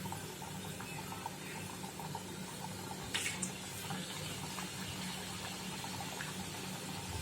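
Hot oil sizzling and bubbling steadily as samosas deep-fry, with fine crackles throughout and a brief clatter of sharp clicks about three seconds in.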